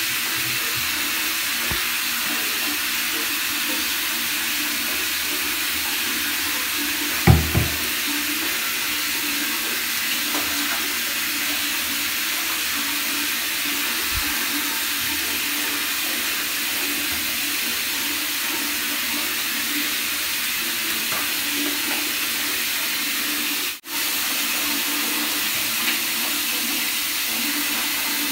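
Water running steadily into a bathtub. A single low thump about seven seconds in.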